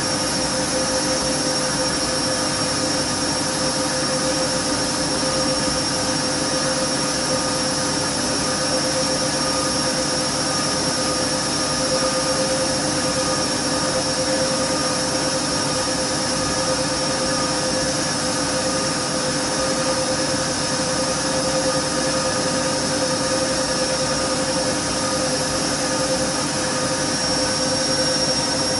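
Siemens 6127 front-loading washing machine in its final spin at steady high speed: a constant motor and drum whine over the rushing of the spinning drum. Since being moved the machine is no longer fully stable and shakes somewhat on this spin.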